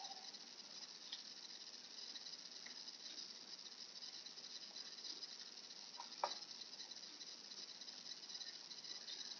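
Faint rustling of plastic packaging and wrapping being handled, with a few small clicks, the sharpest about six seconds in, over a steady hiss.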